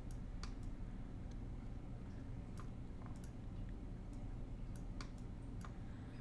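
Computer mouse and keyboard clicks, irregular and scattered, about a dozen in six seconds, over a steady low hum.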